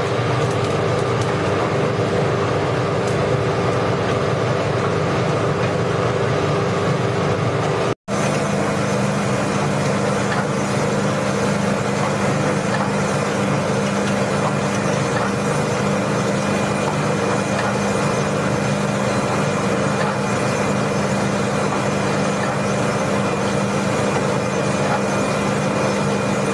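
Drum coffee roaster running: a steady hum of its motors and blower, with roasted beans churning in the cooling tray under the rotating stirring arms. The sound drops out for an instant about eight seconds in, then carries on with a steadier low hum.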